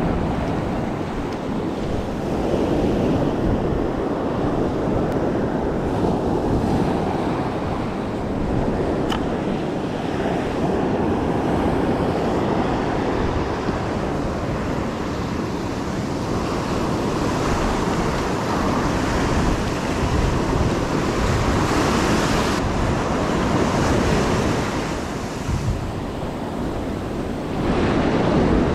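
Ocean surf breaking and washing up the beach in a steady hiss and rumble, with wind buffeting the microphone.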